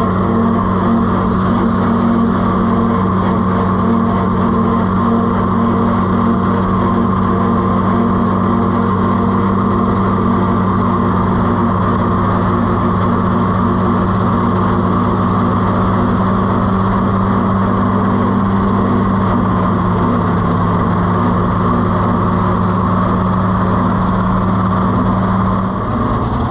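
Oliver 70 tractor's six-cylinder engine running steadily at an even speed while being driven.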